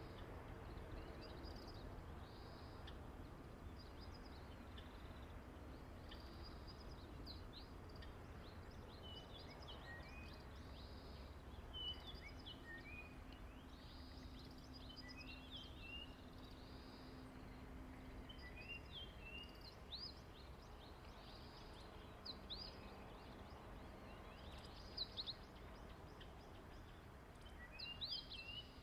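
Faint outdoor background of small birds chirping, with many short quick calls scattered throughout, over a low steady rumble.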